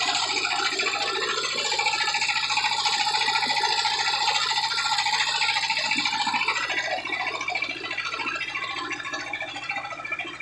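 A steady, high-pitched buzzing rasp that eases off a little after about seven seconds, with a held tone underneath for a few seconds.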